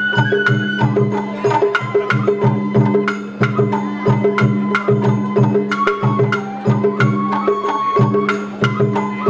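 Live Japanese festival float music (hayashi): a bamboo transverse flute plays held melodic notes over a steady, repeating beat of stick-struck taiko drums with sharp, crisp strikes.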